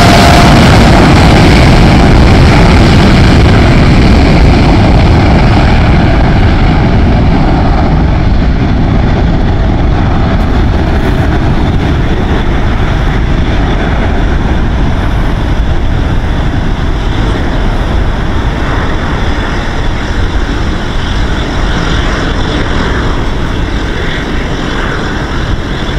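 Boeing 787-8's GEnx-1B jet engines at takeoff thrust: a loud, steady roar that slowly fades and grows duller as the airliner rolls away down the runway.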